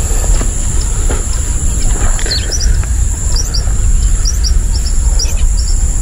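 A small bird chirping in short, high double notes that repeat about every half second to a second from about two seconds in. Under it run a steady high insect drone, a low rumble, and a few crunching footsteps on dry leaves and pebbles in the first two seconds.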